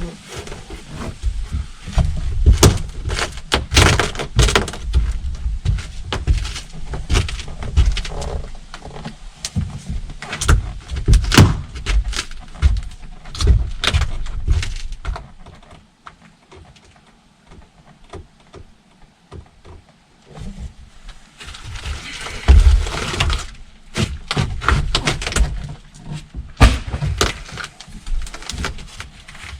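Irregular knocks, thuds and clatter of hands-on work, many sharp hits close together, easing to a quiet stretch for several seconds mid-way before the knocking resumes.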